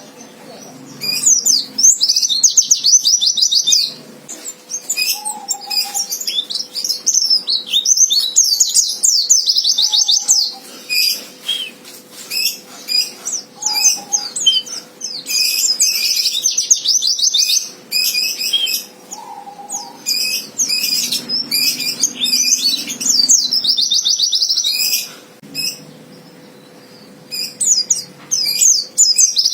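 White-eye (pleci) singing an aggressive 'fighter' song of fast, high twittering trills, in bursts of a few seconds with short pauses between them. This is the challenging male song used to goad rival white-eyes into singing back.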